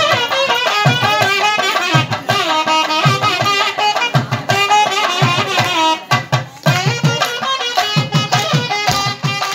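Traditional South Indian music: a pitched melody instrument playing a wavering line over steady drum beats, with a short break in the drumming about six seconds in.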